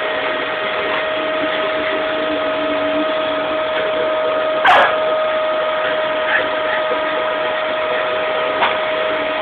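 Vacuum cleaner running with a steady whine, and a small dog giving one sharp bark about halfway through.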